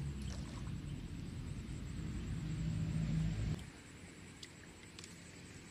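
Low engine rumble of a motor vehicle with a steady hum, growing louder and then cutting off abruptly about three and a half seconds in. Faint outdoor background with a couple of small clicks follows.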